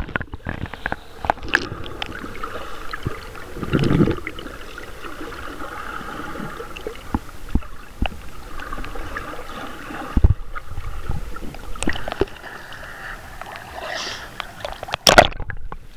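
Muffled water noise picked up by a submerged camera: a steady hiss with scattered clicks and gurgling, then a loud splash near the end as the camera breaks the surface.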